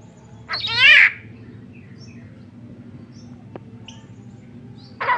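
A tame Javan myna gives one loud, harsh call about half a second in, then a few faint chirps, and starts another loud call right at the end.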